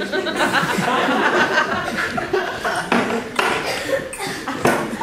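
Audience laughing, with several sharp knocks and clatters from a metal folding chair being wrestled with on stage.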